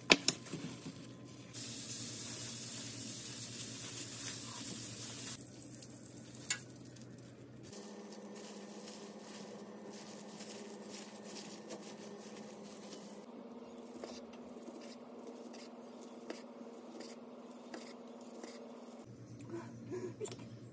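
Plastic-gloved hands pressing, rolling and handling gimbap on a wooden cutting board: light rustles and taps. A steady hiss runs from about two seconds in to about five seconds in.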